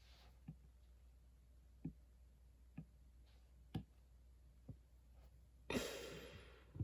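Faint, sharp clicks, the later ones about once a second, then a short breathy rush of noise about six seconds in that fades away.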